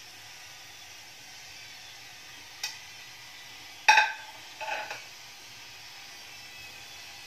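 Steady hiss of a lit gas stove burner, with a light tap about two and a half seconds in, then a sharp ringing clink of metal kitchenware about four seconds in, the loudest sound, and a second, softer clink just after.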